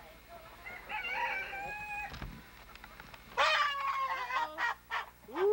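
A chicken squawking as it is held: a shorter call about a second in, then a loud, harsh squawk about three and a half seconds in, followed by broken squawks and another loud one at the end.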